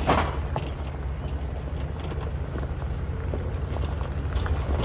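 Tow truck towing a heavy truck camper on a gravel road: a steady low engine-and-tyre rumble, with irregular crunching and clicking of stones under the tyres. There is a sharp louder knock right at the start.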